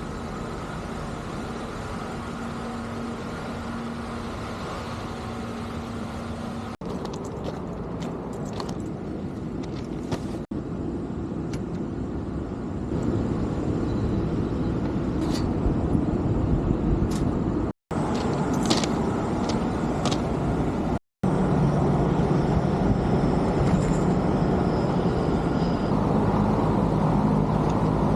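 Steady mechanical rumble of motors running, with a low hum, in several short clips joined by sudden cuts; louder in the second half.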